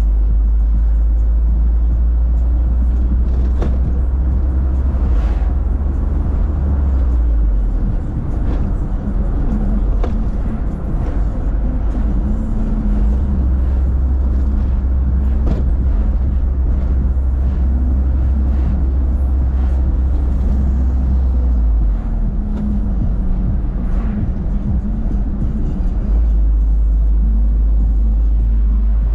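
Motor vehicle on the move: a steady loud low rumble that drops away twice and comes back, with music playing over it.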